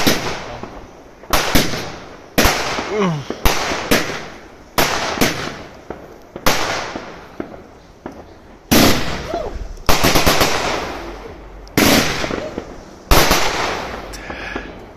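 Aerial fireworks going off in a quick sequence of loud bangs, about one every second with a brief lull near the middle, each bang trailing away over a second or so.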